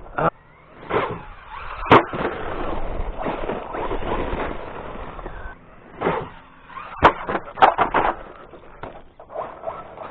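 Electric Traxxas Hoss RC monster truck driving over rough ground, tyres rushing and scraping, with sharp knocks as it lands or hits things: one about two seconds in and several close together near the end.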